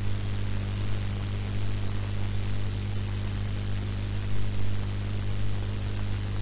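Steady static hiss with a low, constant electrical hum: the noise floor of an open computer microphone with no one speaking.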